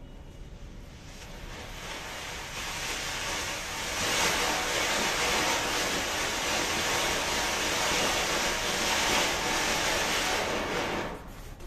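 Shammah Fireworks' White House ground fountain burning, spraying sparks with a steady rushing hiss. It builds over the first few seconds, is loudest from about four seconds in, and fades near the end.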